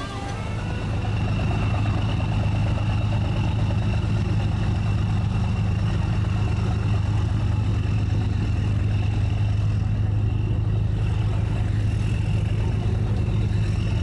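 Engine running steadily with an even, deep hum. It swells up over the first second and then holds level.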